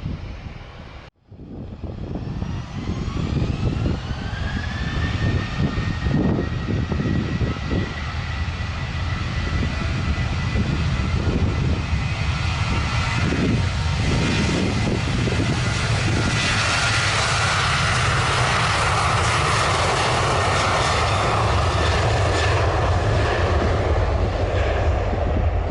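Jet airliner's engines spooling up: a whine rising in pitch over a few seconds, then holding steady as a loud roar builds and keeps on. The sound cuts out briefly about a second in.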